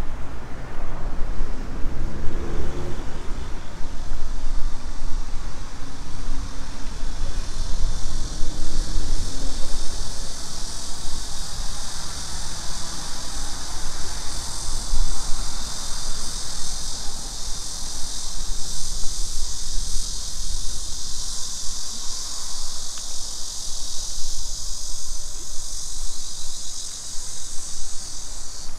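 A steady, high-pitched insect chorus, growing louder over the first several seconds, over a constant low rumble.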